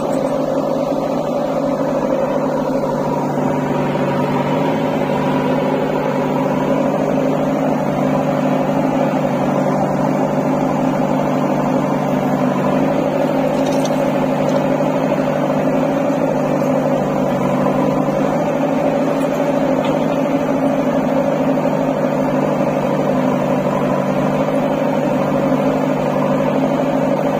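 JCB 3DX backhoe loader's diesel engine running steadily while the backhoe digs and dumps soil, with an even, unchanging drone.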